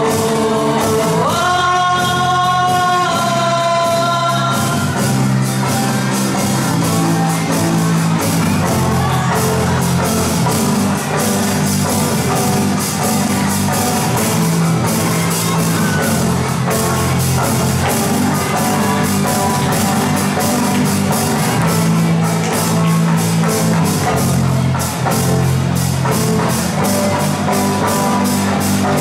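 A live rock band, with drum kit, electric bass and guitar, plays a steady beat under a group of singers. A long note is held from about a second and a half in.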